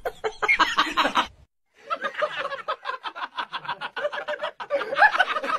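A person laughing in a long run of quick, even snickers, starting after a brief break about one and a half seconds in.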